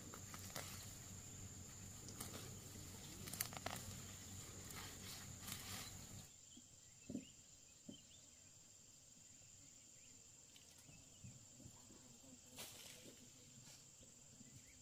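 Faint outdoor ambience: a steady high insect-like drone with scattered light clicks and knocks. About six seconds in, the background hiss drops away.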